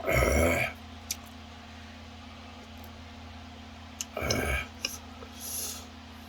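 Loud slurping of ramyeon noodles and broth, once at the start and again about four seconds in, with a few light clicks of utensils against the bowl in between.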